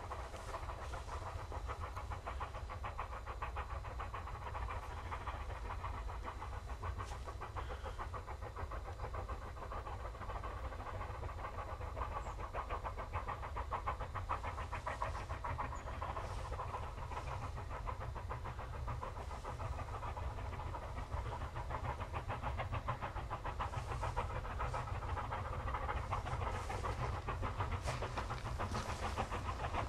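QJ class steam locomotive hauling a freight train, its exhaust beating in fast, steady chuffs that grow slightly louder as it approaches.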